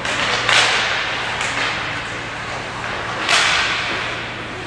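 Ice hockey skate blades scraping hard across the ice, two sharp hissing scrapes about half a second in and just past three seconds, over a steady low hum.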